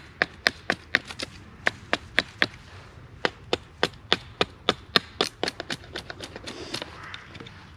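Wood being chopped with quick, light blows of a blade, about four strikes a second, with a short pause about two and a half seconds in and fewer, softer strikes near the end.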